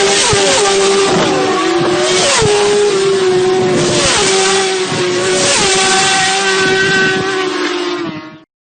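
Racing motorcycles at high revs, several engine notes overlapping, with the pitch dropping sharply again and again as bikes pass or shift. The sound cuts off abruptly near the end.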